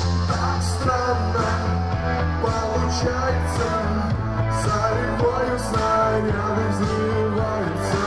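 Live band music through a venue's sound system: a pop-rock song with a heavy steady bass line and a regular drum beat.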